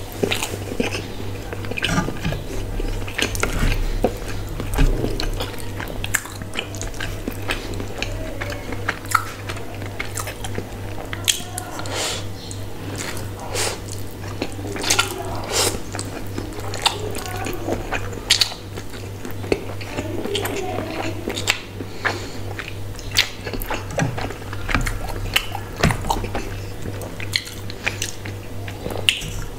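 Close-miked chewing and biting by a person eating spicy instant noodles and a chicken burger, with many short sharp mouth clicks scattered throughout, over a steady low hum.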